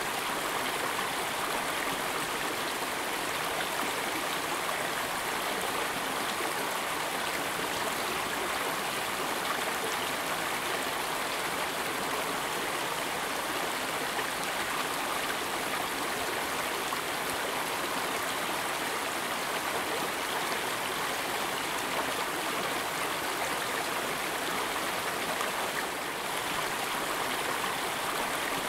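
Steady sound of flowing stream water, an added sound effect rather than live sound.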